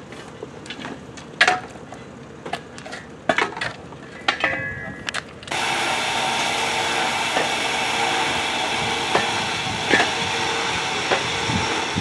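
Scattered sharp clicks and knocks of metal and stone as a rock is rigged and worked, with a brief ringing a little past four seconds in. About five and a half seconds in, a steady hiss comes in suddenly, with a few knocks over it.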